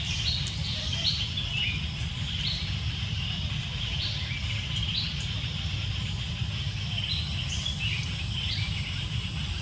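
Birds chirping: short, high calls repeated irregularly about once or twice a second, some dropping in pitch, over a steady low rumble.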